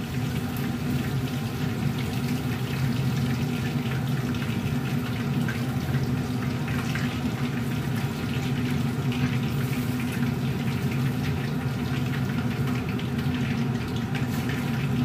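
Pieces of fish fillet sizzling as they fry in oil in a pan, with light clicks from the utensils turning them. The steady hum of a kitchen range hood fan runs underneath.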